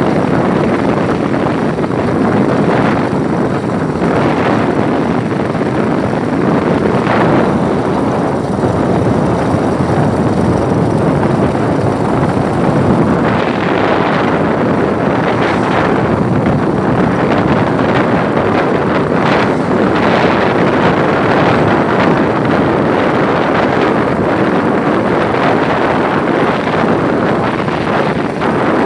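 Wind rushing over the microphone of a moving vehicle, over steady road and engine noise, with a few stronger gusts.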